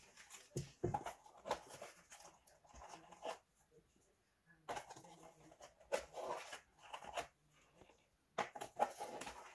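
Kitchen handling sounds during food preparation: irregular knocks, taps and rustling, with a couple of heavier thumps about a second in.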